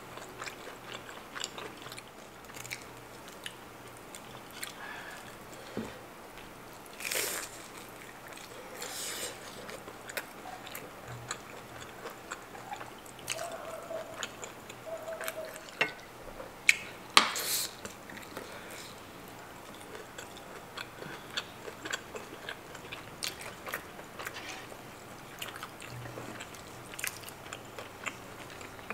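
Chewing and biting of breaded shrimp cutlet and creamy kimchi udon noodles, with many small mouth clicks and two louder bursts, one about a quarter of the way in and one just past halfway.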